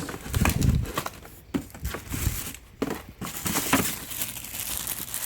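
Fireworks packaging being handled: wrapping crinkling and rustling, with several irregular knocks and a low thump about half a second in.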